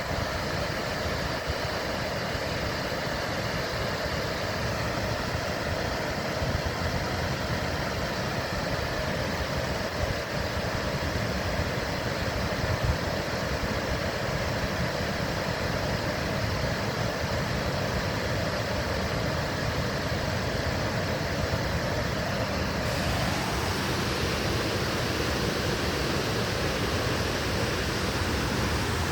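Ganja River water rushing steadily, with a shift in its tone about three-quarters of the way through.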